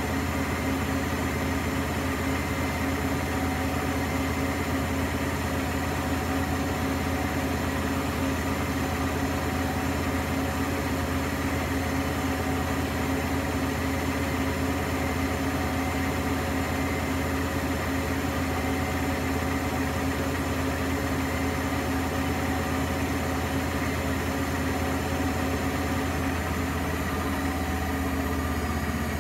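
Primus P6 commercial front-loading washing machine spinning at a constant speed in its final spin, a steady motor hum and drum whir.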